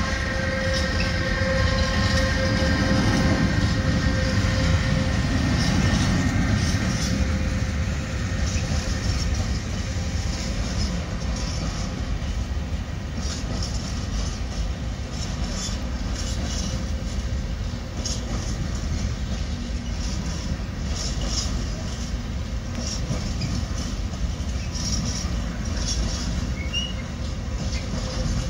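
Electric freight locomotive passing close by, its drive giving a steady whine that fades over the first few seconds. A long train of container wagons follows with a steady rumble, the wheels clicking regularly over the rail joints in the second half.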